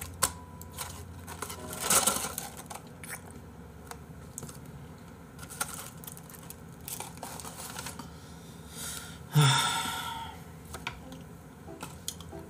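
Small clicks and paper rustling from a paper food box being handled at a desk, with a louder rustle about two seconds in and another short, louder burst just before ten seconds.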